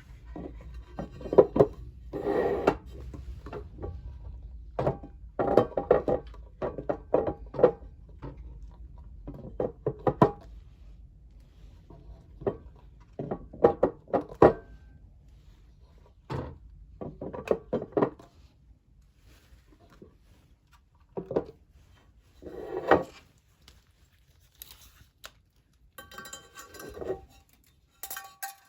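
Metal stove and cookware parts being handled: repeated sharp clattering and knocking, some hits ringing briefly, coming in bursts and thinning out in the second half.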